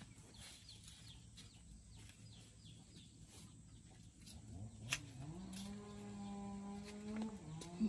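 Chicks or small birds chirping faintly, then about halfway through a long, low farm-animal call that rises and is held for about four seconds, with a sharp knock or two.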